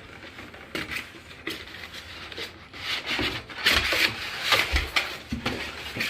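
Cardboard box and packaging being handled while a heavy stand mixer is lifted out: irregular rustling and scraping with a few dull thumps, busiest in the second half.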